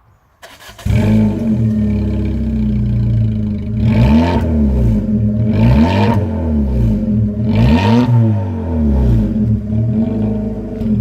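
Citroën C4 Coupé engine with a straight-pipe exhaust starting up under a second in, then idling loudly with three quick throttle blips about two seconds apart and a smaller one near the end.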